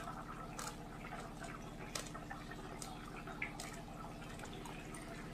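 A thin curry of bottle-gourd stems and potatoes boiling in a kadhai, bubbles popping with scattered small pops and clicks over a low steady hum.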